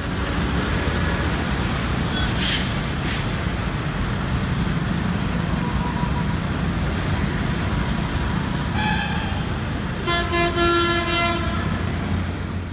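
Steady low rumble of a moving road vehicle and traffic, with a vehicle horn honking briefly near the end.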